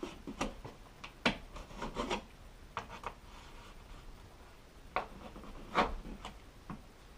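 A blade cutting and scraping around the edge of an old wall switch plate, in a series of short, separate strokes.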